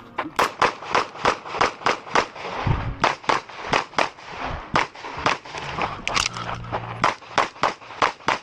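Glock 17 9mm pistol firing a rapid string of shots on a timed stage, about three shots a second, with a brief pause about two and a half seconds in and another around six seconds.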